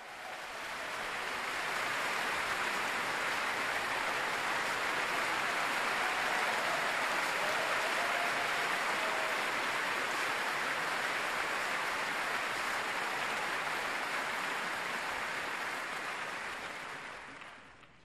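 Large concert-hall audience applauding, a steady wash of clapping that swells in over the first couple of seconds and dies away near the end.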